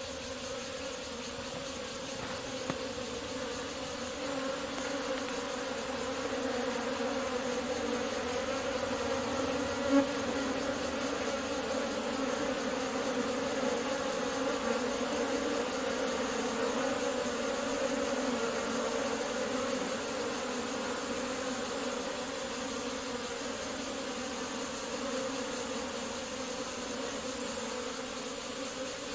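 A honeybee swarm buzzing in a steady, dense hum as it moves into a cavity in a rock face. The hum swells slightly through the middle, with one brief tap about ten seconds in.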